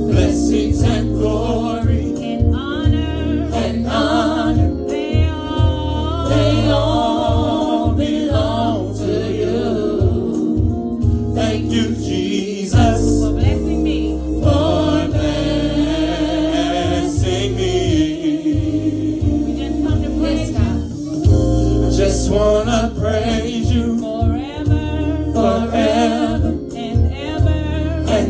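Live gospel praise-and-worship song: singers sing with vibrato into microphones over a sustained instrumental backing with a steady low bass.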